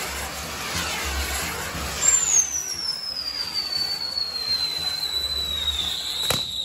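Castillo fireworks tower's spinning wheel of fire burning with a dense hiss that swells and fades in quick repeated sweeps as it turns. About two seconds in, a long firework whistle starts high and slowly falls in pitch, and a single sharp crack goes off near the end.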